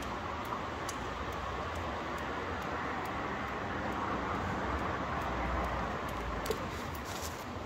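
Steady city street ambience: a continuous hum of distant traffic.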